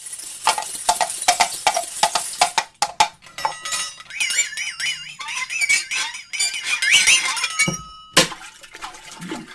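Foley sound effects performed by hand: a fast run of ringing knocks for about three seconds, then high, warbling squeaky sounds, and one sharp hit about eight seconds in.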